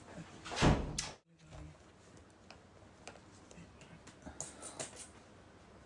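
A brief louder rustle about half a second in, then faint, scattered small clicks and ticks of things being handled.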